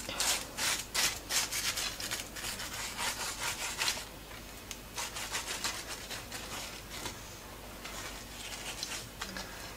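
A garlic clove rubbed back and forth over a slice of crisp toasted bread: a dry, rasping scrape in quick strokes, about three a second, louder for the first four seconds and then softer.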